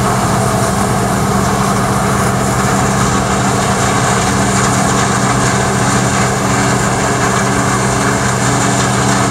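Massey-Ferguson 8570 rotary combine running steadily while harvesting corn: the engine's even drone under the whir of the threshing rotor and straw chopper.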